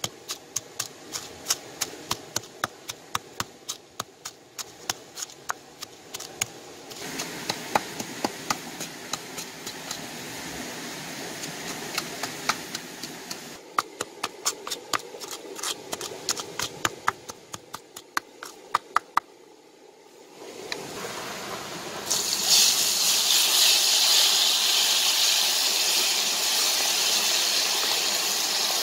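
Wooden pestle pounding chillies and garlic in a coconut-shell mortar: quick, regular knocks, about three to four a second, with a break in the middle. About two-thirds of the way through, a loud, steady sizzling starts as the paste fries in hot oil in a clay pot.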